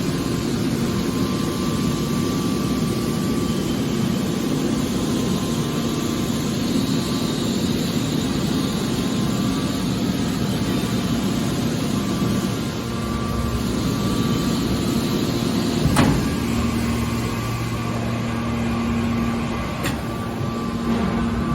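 Hydraulic scrap-aluminum baler running with a steady machine hum, with one sharp knock about two-thirds of the way through.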